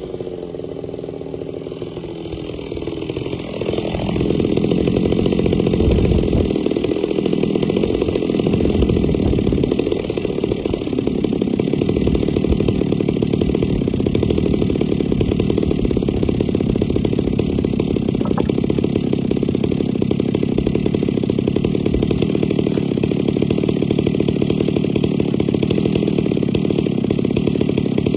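Two-stroke chainsaw left idling steadily close by while nobody cuts with it; it gets louder about four seconds in and then runs evenly.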